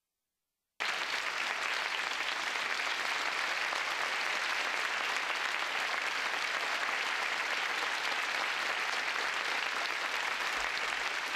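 Large theatre audience applauding, a dense, even clapping that starts suddenly about a second in and stops abruptly near the end.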